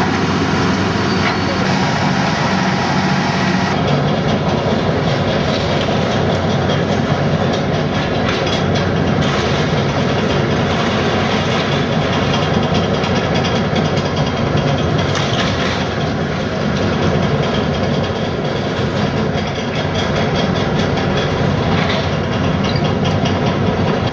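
Heavy demolition machinery at work: an engine running under a continuous dense clatter and crunch of breaking material.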